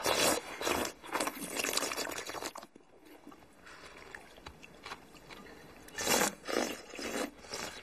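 Several people slurping and chewing noodles from bowls held to their mouths, in noisy bursts: a run of slurps in the first two and a half seconds, a quieter spell, then more slurping around six seconds in.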